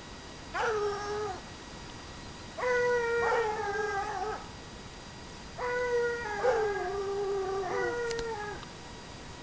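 Ariégeois hounds baying in long, drawn-out howls, giving tongue on a hare's trail. There are three bouts: a short single call, then two longer ones in which two voices overlap, each call dropping slightly in pitch as it ends.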